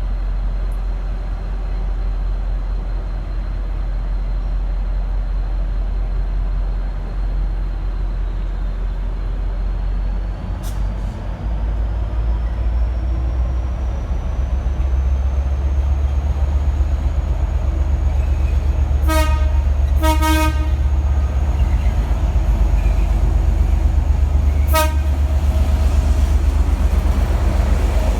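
V/Line N class diesel locomotive pulling away, its EMD 12-645 engine throttling up and rumbling louder about eleven seconds in, with a thin whine rising in pitch. Its low-note horn sounds a short toot, a quick double toot just after, and another short toot about five seconds later.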